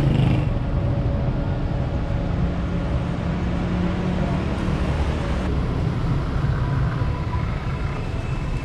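Street traffic noise: a coach engine running close by with a steady low hum, changing about five and a half seconds in to the sound of cars passing on a busy road.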